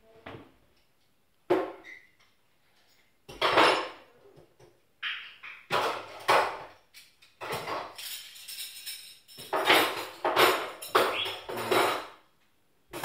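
Cutlery and dishes clinking and clattering in irregular bursts as a dishwasher is unloaded into a kitchen drawer.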